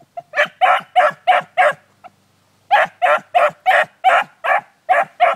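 Beagle baying on a rabbit's trail: short, even barks about three a second, a run of five, a brief break, then a longer run of about eight.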